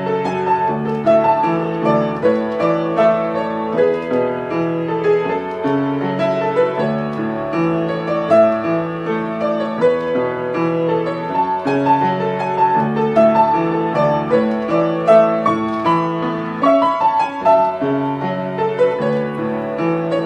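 Yamaha upright piano being played: a melody over a repeating pattern of low broken chords, at a steady pace.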